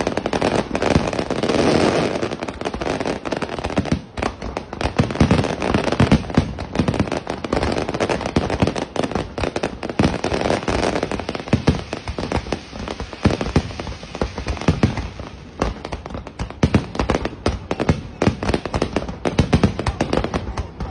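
Fireworks display: a dense, continuous barrage of bangs and crackling, many reports a second with no let-up.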